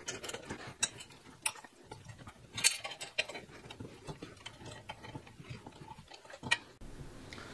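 Scattered sharp metal clicks and taps as a hex tool works a bolt on a steel motorcycle pannier rack's bumper bar, loudest about two and a half seconds in.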